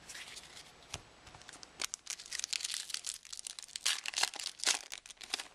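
Wrapper of a Topps baseball card pack crinkling and tearing as it is opened by hand, in a run of dense crackles.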